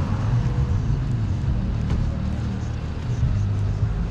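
City street traffic: the steady noise of vehicle engines running close by.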